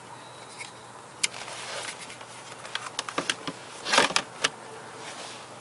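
Scattered clicks and light knocks from hands working at an open car glovebox, with a louder clatter about four seconds in as the glovebox lid is shut.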